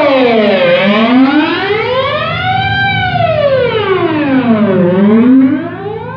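Electric guitar note through a flanger effect with resonance turned up full, its sweep gliding slowly down and up like an ambulance siren, about four seconds per cycle. It gets somewhat quieter near the end.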